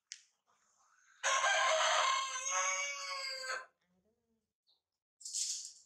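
A rooster crowing once, a single loud, drawn-out crow of about two and a half seconds starting about a second in. A brief hiss follows near the end.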